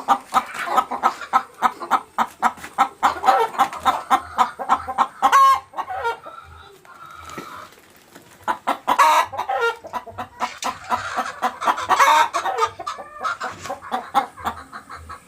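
Laying hens clucking loudly, many short calls overlapping, with a quieter lull about six to eight seconds in before the clucking picks up again.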